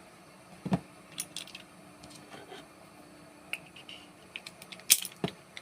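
Small clicks and taps of a cut nylon-and-steel lockout padlock's inner parts being pulled out and handled, with one sharper knock less than a second in and a cluster of light clicks near the end.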